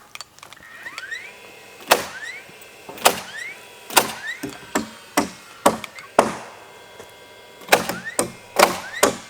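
Hammering on wood: about a dozen sharp blows at uneven intervals, roughly one a second, several leaving a short ringing tone.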